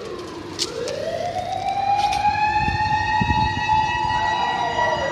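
A Japanese fire pump engine's motor siren and electronic siren sound together. The wail climbs over about two seconds, holds high, and begins to fall near the end, over a steady high tone.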